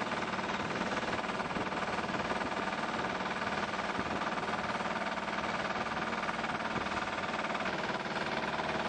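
A small boat's engine runs steadily while the boat is under way. A constant rushing hiss of wind and water lies underneath.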